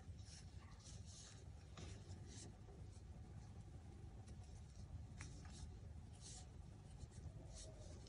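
Faint, irregular scratching and rustling of a metal crochet hook drawing yarn through stitches, over a low steady hum.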